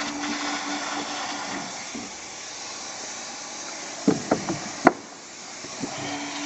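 Heat gun blowing a steady hiss of hot air onto vinyl decking to soften it for bending, with a low hum that drops out after a couple of seconds and comes back near the end. About four seconds in comes a quick run of knocks and taps, the last one sharp.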